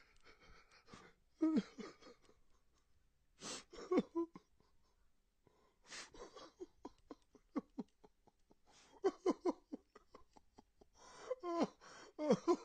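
A man crying: sharp gasping inhales, then a run of rapid stuttering sobs, building near the end to broken, wavering wails.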